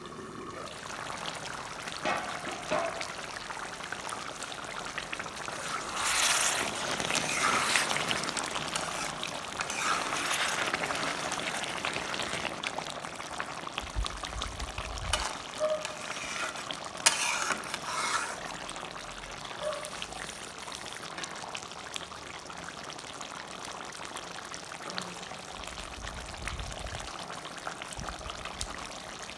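Thick vegetable curry simmering and bubbling in an open steel kadai, with a few louder spells of a ladle stirring and scraping the pan.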